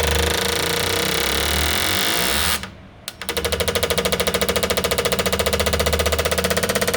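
Fuel injectors pulsing on an injector-cleaning machine, a fast, even mechanical clatter. It cuts out suddenly for about half a second, then starts again.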